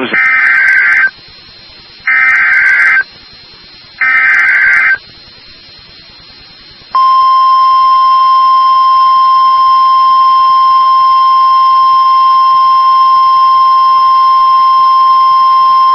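Emergency Alert System signal from NOAA Weather Radio: three short bursts of SAME header data, each about a second long and two seconds apart, then from about seven seconds in the steady 1050 Hz weather radio warning alarm tone, held unchanged. It is the coded header and attention tone that open a severe thunderstorm warning broadcast.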